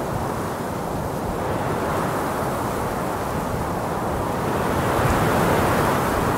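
Steady rushing wind noise, growing a little louder about five seconds in.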